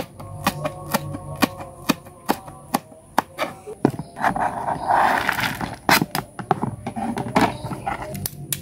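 Kitchen knife chopping green chillies on a plastic cutting board, sharp strokes about two a second. Midway there is a rustly handling noise, then scattered knife taps as the chopped chillies, shallots and garlic are scraped into a plastic bowl.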